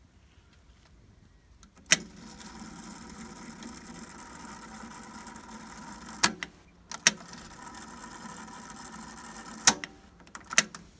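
Sony TC-188SD cassette deck's mechanical piano-key transport: a loud clack as a key goes down about two seconds in, then the tape fast-winding with a steady whir. A clack stops it about six seconds in, and a second key starts another wind that runs until a clack near the end. Two lighter key clicks follow as stop and play are pressed.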